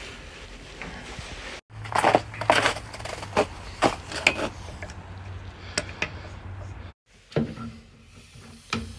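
Wrench and fittings being worked on a furnace gas line: irregular metallic clicks and scrapes over a steady low hum.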